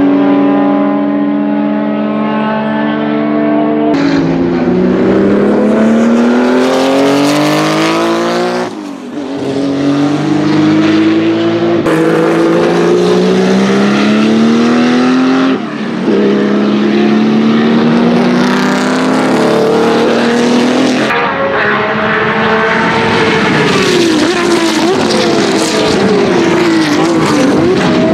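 Porsche 935 K3 race cars' twin-turbo flat-six engines under hard acceleration, the note rising through each gear and breaking at the shifts. Near the end several race cars run together, their engine notes rising and falling over one another.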